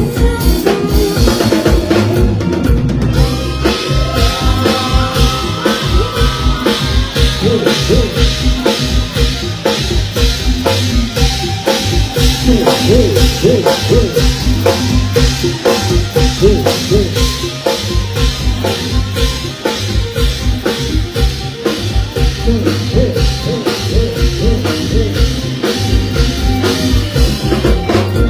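Live mor lam stage band playing an instrumental passage, loud, with the drum kit keeping a steady, fast beat under a melody line.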